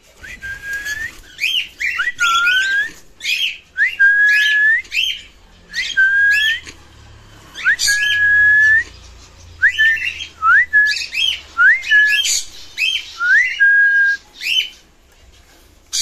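A male cockatiel, a mimic that has learned to talk, whistling a repeated phrase: a string of whistled notes, each sliding up and then held steady, with sharp chirps between them.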